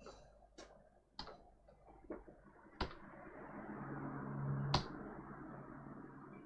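Small sharp clicks and taps of tools on a workbench, about six in all. From about three seconds in, a steady blowing hiss with a low hum starts, swells, and fades toward the end.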